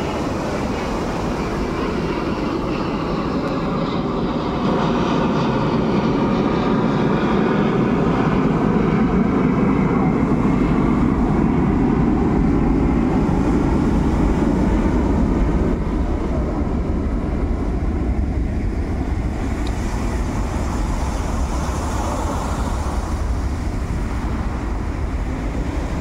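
Sea surf breaking and washing up a pebble beach, a steady rushing noise that swells a little louder in the middle and eases again.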